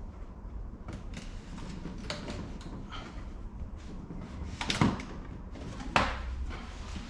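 Scattered light clicks and clatter of something being handled, with two sharper knocks, the louder one just under five seconds in and another about a second later.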